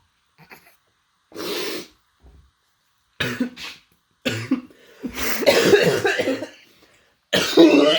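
A man coughing and clearing his throat in several separate bouts, the longest and loudest running from about five to seven seconds in, as he reacts to a bad taste in his mouth.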